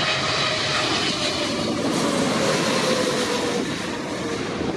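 Jet airliner passing low overhead on final approach to land: a steady engine rush with a faint whine that slides slightly down in pitch, easing off a little near the end.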